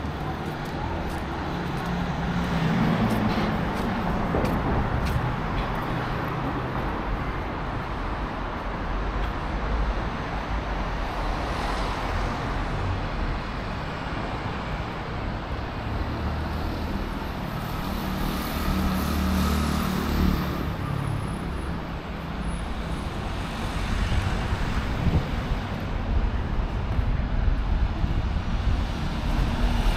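Road traffic on a city street: motor vehicles passing with a steady engine hum, swelling twice as vehicles go by.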